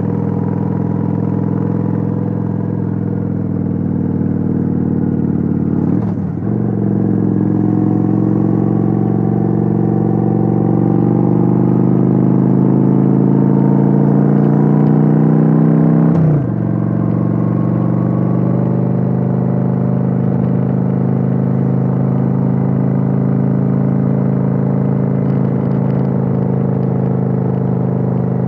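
Kawasaki Vulcan 900's V-twin engine under way, heard on board the motorcycle. It pulls with a steadily rising pitch, falls sharply at an upshift about two-thirds of the way through, then runs at an even cruising pitch; a briefer dip about a fifth of the way in marks another shift.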